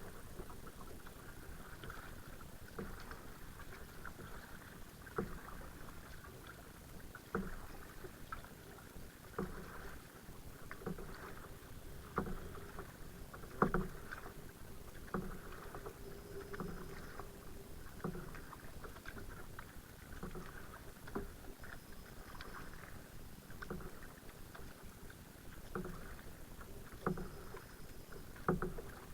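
Kayak being paddled, with a regular stroke and splash about every one and a half to two seconds and short knocks between them.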